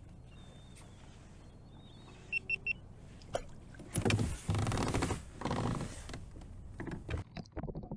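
Three quick electronic beeps about two and a half seconds in, then a few seconds of rustling, knocking and handling noise as the angler leans over the side of a kayak with a pike to release it, ending in a scatter of light clicks and knocks.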